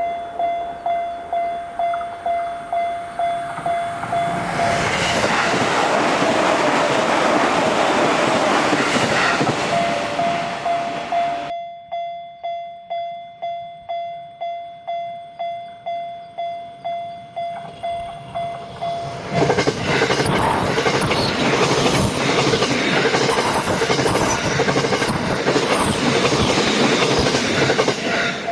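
Japanese level-crossing warning bell ringing a steady single-pitched clang, about two strokes a second. Electric trains pass twice over it, one from about five seconds in and another from about twenty seconds in. Between them the sound cuts abruptly and the bell rings on alone.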